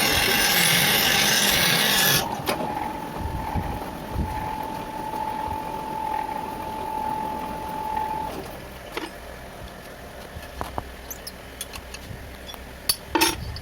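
Lathe tool cutting an inner oil groove in an aluminium bronze bush: a loud, harsh cutting noise for about the first two seconds, then a steady whine that stops about eight seconds in. After that the machine runs more quietly, with scattered clicks and a sharp knock near the end.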